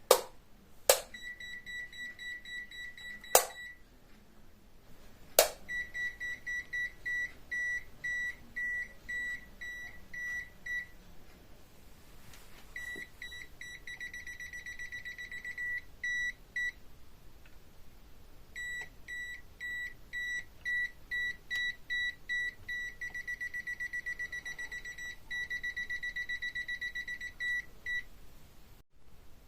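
Aneng AN8009 multimeter's non-contact voltage (NCV) buzzer sounding a high beep, pulsing on and off and in places speeding into a rapid, near-continuous trill, the sign that it is detecting live mains wiring. Several sharp clicks come in the first few seconds.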